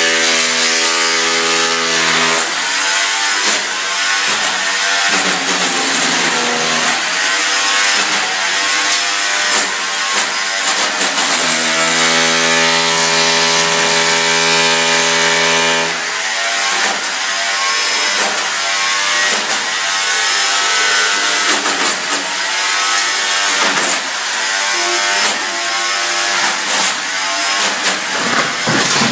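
Handheld power tool cutting into a concrete ceiling beam, its motor running loud with a pitch that repeatedly dips under load and recovers. The pitch holds steady for a few seconds midway, then the dips resume.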